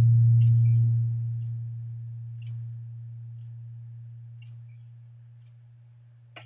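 A steady low tone with faint overtones, loud at first and then fading slowly away, with a single sharp click near the end.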